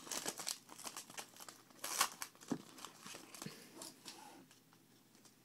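Foil trading-card pack wrapper crinkling and tearing open, with a loud crackle about two seconds in. After that it goes to softer rustling and clicks as the cards are handled.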